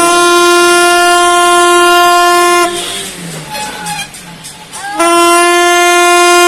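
Ship's horn blowing two long, steady, loud blasts, the first ending near three seconds in and the second starting about five seconds in; the second slides up briefly to its pitch as it starts.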